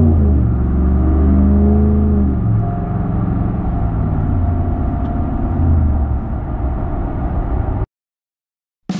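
Ram 1500's 5.7 Hemi V8 through a Borla S-Type cat-back exhaust, accelerating with its pitch rising and falling for the first couple of seconds, then running steadier. The sound cuts off abruptly about eight seconds in.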